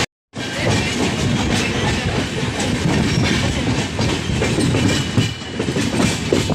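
Passenger express train running on the rails, a dense rumble with irregular wheel clatter over the track. A brief drop to silence right at the start, where the recording cuts.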